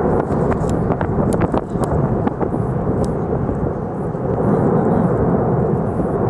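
Lava fountain at the main vent of the La Palma volcano, a steady deep rumble of erupting gas and lava with sharp cracks and pops in the first half. It gets a little louder about four and a half seconds in.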